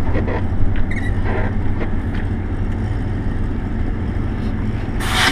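Diesel engine of a MAZ truck tractor running steadily as the truck moves slowly, with a short loud hiss of air about five seconds in.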